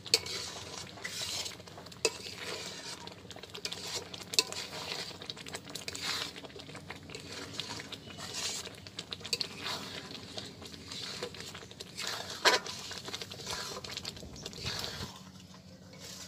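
A long metal spatula scrapes and knocks against a large iron kadai, stirring semolina into thick palm-pulp halwa, with a few sharper clanks along the way. It eases off about a second before the end.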